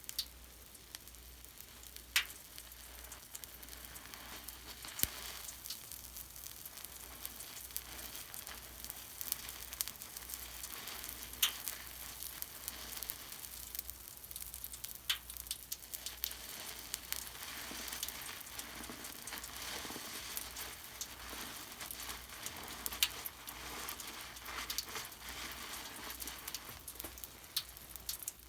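Foam of bathroom cleaner crackling and fizzing: a soft, steady hiss full of tiny pops, with a few sharper clicks.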